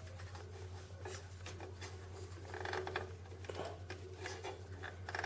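Faint scattered clicks and scraping of the four plastic fasteners of a desktop CPU cooler being twisted loose by hand, with a brief soft rustle near the middle, over a low steady hum.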